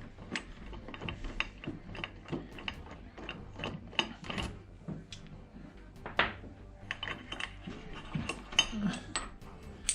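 Small metal disc-brake parts (pads, spacers and bolts) clicking and clinking irregularly as they are handled and taken apart by hand.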